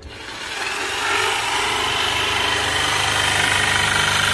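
Corded electric jigsaw switched on and cutting into a wooden board: it starts suddenly, comes up to full speed within the first second, then runs steadily.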